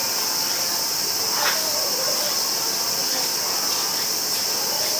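A steady high-pitched hissing drone, with no change in pitch or rhythm.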